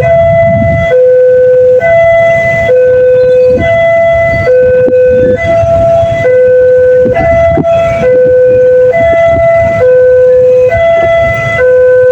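Railway level-crossing siren sounding its two-tone electronic warning: a lower and a higher note alternate about once a second, loud and steady, over a low rumble.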